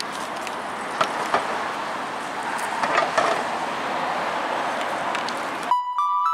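Outdoor city street ambience: a steady wash of traffic noise with a few short knocks. Near the end it cuts off abruptly and a single held electronic tone begins, the start of background music.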